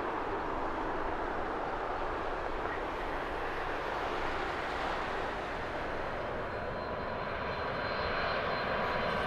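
Jet engines of a Boeing 747-8F freighter landing, a steady rushing jet noise as it touches down and rolls out along the runway. Near the end a high steady engine whine joins in, from a Boeing 747-400F freighter on final approach.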